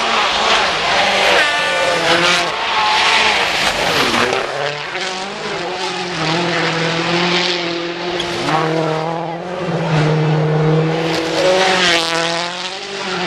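Rally car engine revving hard, its pitch climbing and dropping again and again through gear changes as it approaches at speed. Near the end it passes close by, louder, with gravel spraying from its tyres.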